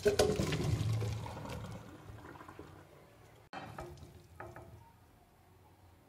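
Boiled potato cubes and their cooking water poured from a pot into a stainless steel colander in a sink, a splashing pour that dies away over about two seconds. After a break, a few light knocks as the drained cubes tumble into a glass bowl.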